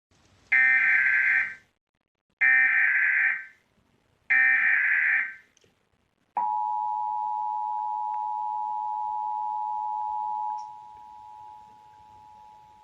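Emergency Alert System required monthly test: three bursts of about a second each of the SAME digital header, a harsh buzzing data screech, then a steady EAS two-tone attention signal. The attention tone drops much quieter about four seconds after it starts and keeps sounding.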